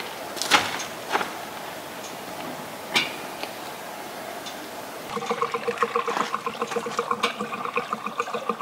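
Diesel being poured from a reserve fuel can into a van's fuel filler: a steady rush of liquid with a few knocks. About five seconds in it turns to fast, pulsing glugging.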